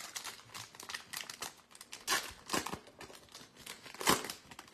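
Foil wrapper of a trading card pack crinkling and being torn open, in a run of sharp rustles with the loudest ones about two seconds in and near the end.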